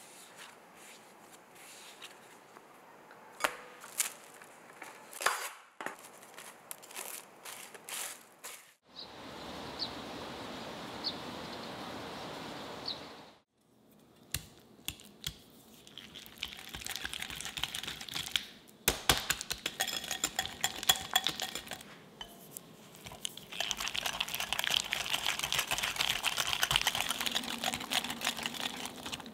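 Wire whisk beating softened butter in a glass bowl: fast, continuous clinking and scraping of the wires against the glass, filling the second half and loudest near the end. Before it, a few soft taps of dough being rounded by hand on a wooden board, then a steady hiss for about four seconds.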